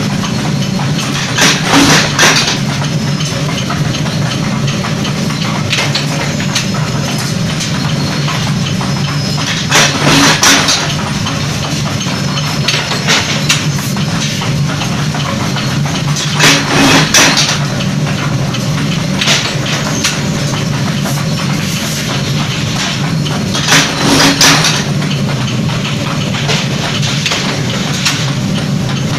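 Forging power press running with a steady machine hum, its ram striking hot steel between the dies in short groups of heavy metal blows every few seconds.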